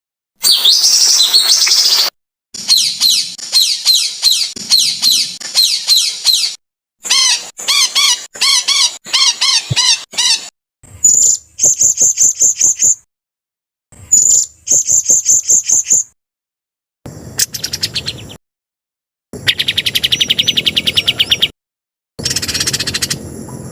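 A spliced sequence of songbird calls, a masteran track for teaching cage birds new songs. Short clips of repeated chirps, rapid trills and high whistled notes each cut off abruptly, with a brief silence before the next, different call.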